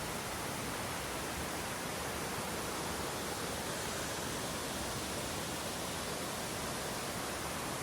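Steady rushing roar of a large waterfall, even and unbroken.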